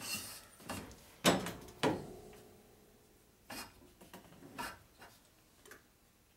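Finned S&S big-bore motorcycle cylinder knocking and scraping against the honing machine's mandrel and stones as it is slid along by hand: a handful of sharp metal clunks, the loudest in the first two seconds, one ringing briefly, then lighter knocks.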